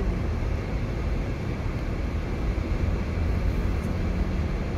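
Steady low rumble of a car's engine and tyres on a snow-packed road, heard from inside the moving car's cabin.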